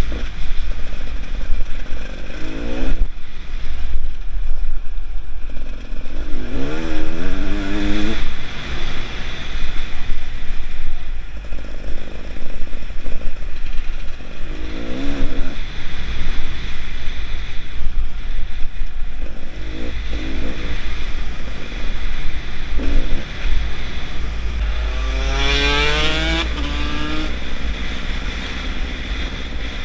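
Beta Xtrainer 300's two-stroke single-cylinder engine under a rider's throttle, the revs rising in several bursts. The longest climbs near the end and steps down in pitch as it shifts up through the gears. A heavy low wind rumble sits under it on the helmet microphone.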